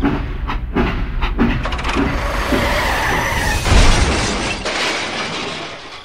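Train rumbling along the rails, then about four seconds in a loud crash with breaking and shattering that dies away over the next second or so: the locomotive colliding with a tractor.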